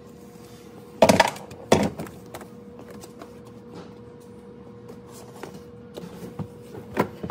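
Two heavy thunks about a second apart as cordless power tools are set down on a car's rear floor, followed by a few light knocks and one more thunk near the end, over a faint steady hum.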